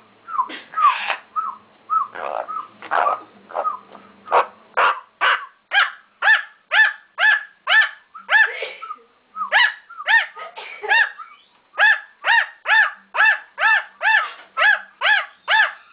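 Parrot barking like a dog: a long, even run of short bark-like calls, about two a second, after a few squeaky whistled notes at the start.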